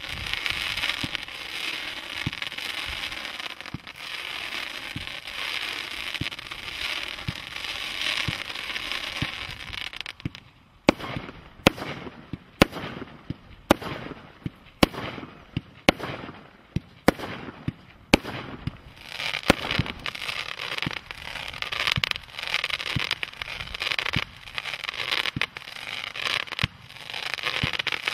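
Panther Attack firework barrage cake firing. It opens with dense crackling for about ten seconds, then fires a string of single sharp bangs about one a second, then goes back to dense crackling.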